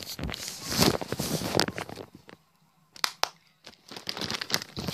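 Rustling and handling noise, then two quick hand claps about three seconds in, the double clap that switches off a clap-activated light; more rustling follows near the end.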